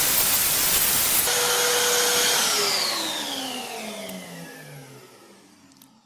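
Inalsa Micro WD10 wet-and-dry vacuum cleaner running with a loud rush of air at the nozzle. About a second in it is switched off, and the motor's whine falls in pitch and fades away as it runs down.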